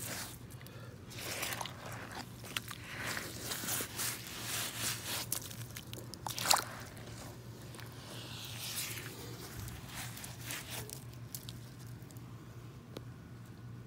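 Rubber muck boots squelching and sloshing as they tread and twist in wet mud, in irregular bursts with one sharper splat about six and a half seconds in. The sounds thin out toward the end.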